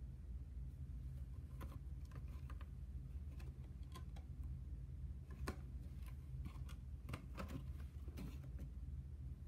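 A cardboard model box being handled: scattered light taps and clicks of fingers and card against the table, the sharpest about five and a half seconds in, over a steady low hum.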